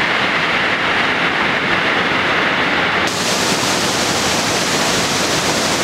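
Steady rushing of water from a waterfall and the rocky creek below it. About three seconds in the sound suddenly turns brighter and hissier.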